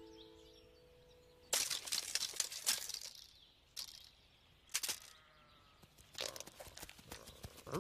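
Crunching, crackling sound effects in two bouts, with two short sharp swishes between them. A held tone cuts off about a second and a half in.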